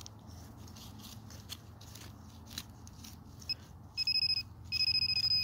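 Faint scrapes and clicks of digging in soil, then, about three and a half seconds in, a metal detector's steady high beep that sounds on and off in stretches of about half a second, signalling metal still in the hole.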